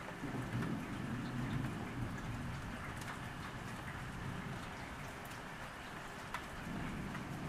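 Steady rain falling, with scattered sharp drop ticks. Over it, a Muscovy duck splashing in a rain puddle and shaking its wings, loudest in the first couple of seconds and again near the end.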